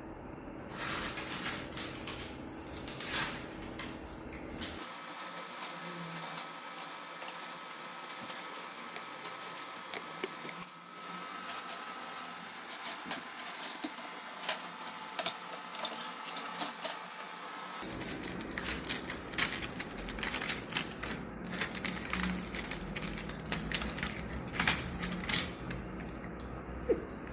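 Scattered light clicks and clinks of metal dalgona tools and pieces of brittle sugar candy on a stainless steel tray, with one sharper click about ten seconds in.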